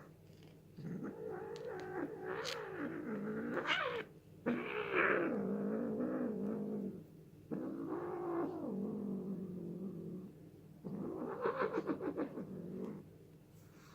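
Domestic cat yowling: four long, drawn-out wavering calls, each a few seconds long, with short breaks between them.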